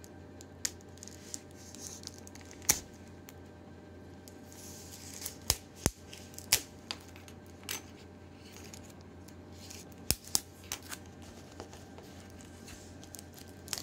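Plastic shrink-wrap on a card pack being picked at and torn open by hand: scattered sharp crinkles and clicks, a few louder snaps, and short bursts of rustling.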